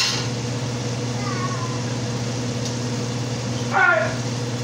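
A cat meowing: a faint falling meow about a second in, then a short, louder meow near the end, over a steady low hum.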